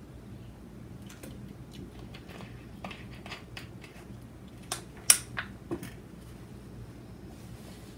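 Tableware being handled at a dining table: scattered light clicks and taps of chopsticks, bowls and a plastic water bottle, with a few sharper clinks about five seconds in, the loudest a single sharp clink. A low steady hum runs underneath.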